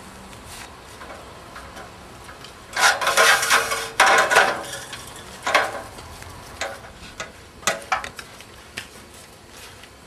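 Clattering crash of pieces of a rickety outhouse coming down as it is pulled apart, loudest from about three to four and a half seconds in, followed by scattered knocks and clinks of falling debris.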